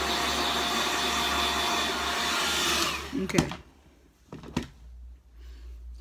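Handheld hair dryer blowing steadily with a faint whine, switched off about three seconds in. A couple of sharp knocks follow.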